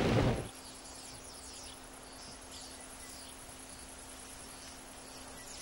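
A loud rushing din from a wildebeest herd crossing a river cuts off about half a second in. It gives way to faint savanna ambience: a steady high insect trill with scattered short chirps.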